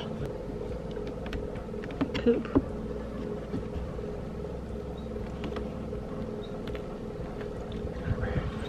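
A few light knocks of a plastic roof-fan frame being handled and pressed into the roof opening, the sharpest about two seconds in, over a steady hum.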